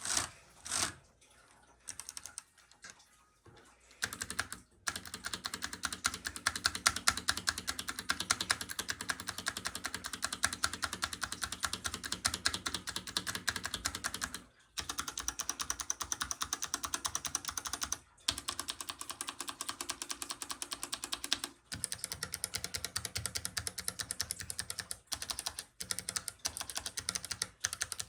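Fast typing on a Hansung TGF ART mechanical keyboard: a few scattered sounds, then a rapid, continuous run of key clacks from about five seconds in, broken by a few brief pauses.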